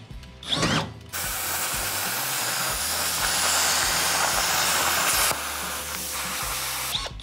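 Handheld plasma cutter slicing through steel plate: a loud, even hiss that starts about a second in. About five seconds in the arc stops and a quieter air hiss carries on. A brief drill sound comes in the first second.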